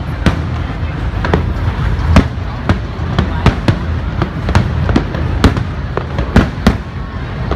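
Aerial firework shells bursting in quick, irregular succession, about two to three sharp bangs a second over a continuous low rumble.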